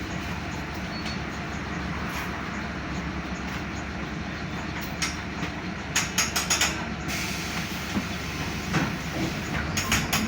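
Mercedes-Benz OF-1519 bus's four-cylinder diesel engine running as the bus drives, with the rumble of the ride. Bursts of sharp rattling from the body come about six seconds in and again near the end.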